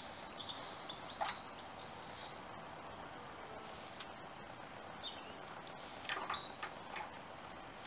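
Faint bird chirps over steady outdoor background noise, in two short spells near the start and about six seconds in, with one sharp click about a second in.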